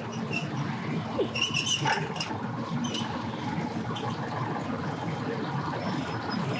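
Boat engines running with a steady low rumble, and birds chirping with short high notes, mostly in a cluster about a second or two in.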